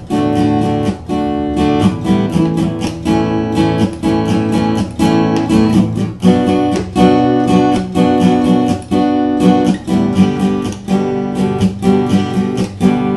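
Acoustic guitar strumming chords in a steady rhythm: an instrumental break between the sung verses of a children's song.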